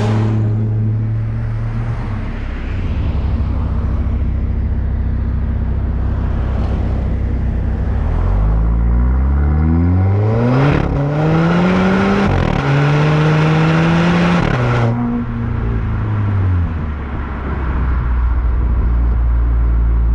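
Turbocharged 2.0-litre four-cylinder of a 2019 Volvo V40 T5 through a Polestar exhaust, heard close at the rear of the car. It runs at a steady low drone, then about eight seconds in pulls hard with the pitch climbing, dropping back twice at gear changes. After about fifteen seconds it lifts off, the pitch falls, and it settles to a steady drone.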